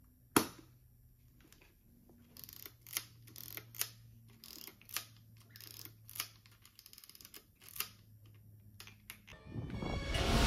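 Pentax 67 medium-format film camera being handled: one sharp click about half a second in, then a scattered series of smaller mechanical clicks and knocks. Near the end a rising rush of noise comes in.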